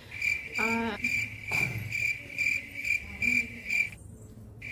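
A cricket chirping: a steady, high-pitched trill pulsing about three to four times a second, which breaks off briefly near the end and then starts again.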